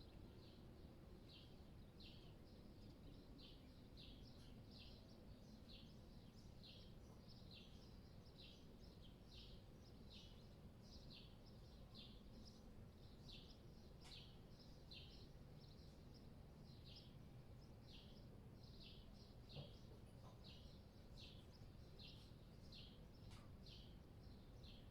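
A small songbird chirping over and over, short falling chirps at about one and a half a second, faint over a steady low rumble of city background noise. There is one soft thump about twenty seconds in.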